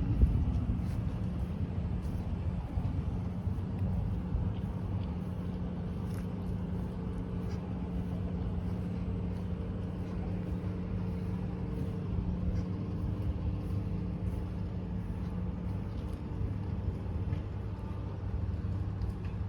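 Steady low hum of a motor vehicle engine over a low background rumble; the hum fades out about three-quarters of the way through.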